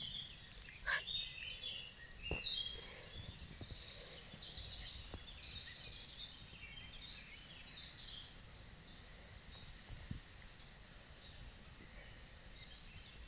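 Songbirds singing and chirping, many short repeated phrases overlapping, over a low steady rumble.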